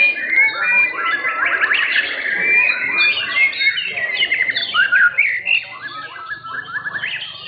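White-rumped shamas (murai batu) singing loudly in a contest: a dense, varied stream of clear whistles, rising and falling phrases and rapid trills.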